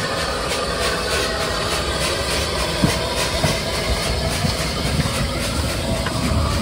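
Narrow-gauge steam locomotive working slowly past at close range: a steady hiss of steam with a quick, even beat of exhaust chuffs and a few short clanks.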